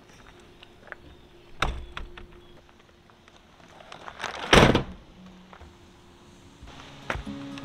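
Scattered knocks and clunks, with one loud, heavy thump about four and a half seconds in and a few sharper clicks near the end.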